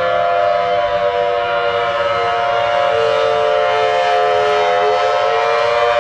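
Air raid siren sounding a loud, held wail of several tones together. Its pitch sags slightly through the middle and rises again near the end.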